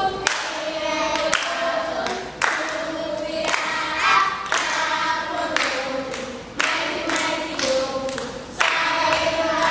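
A group of young children singing a song together, clapping along about once a second.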